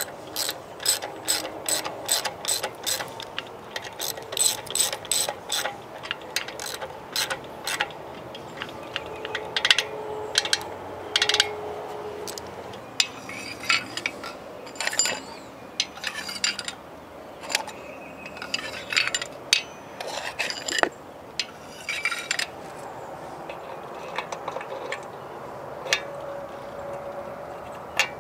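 Hand ratchet wrench clicking in quick runs of strokes with short pauses between them, as a fastener is worked.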